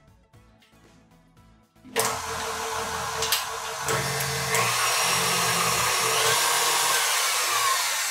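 KitchenAid stand mixer switched on about two seconds in, its motor running steadily and loudly as the wire whisk whips egg whites in the steel bowl, starting to fade near the end.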